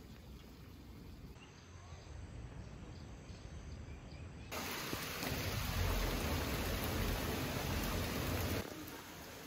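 Quiet outdoor forest ambience, then, a little under halfway in, a steady hiss of heavy rain that cuts off sharply about a second before the end.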